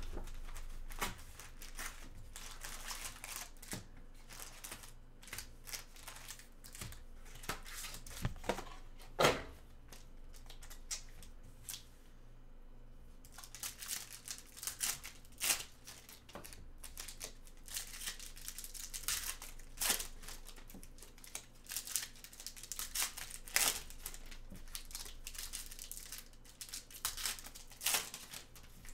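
Plastic wrapping of a Donruss football hobby box and its card packs crinkling and tearing as they are opened, with scattered sharp crackles and a short lull about twelve seconds in.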